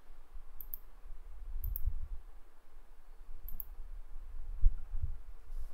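Computer mouse clicking: three sharp single clicks a second or two apart, with a few dull low thumps in between.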